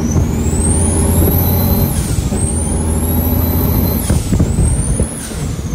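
Turbocharged diesel semi-truck engine pulling hard through the gears, its bigger-than-stock turbo whistling upward in pitch three times and dropping sharply at each shift over a steady low engine drone.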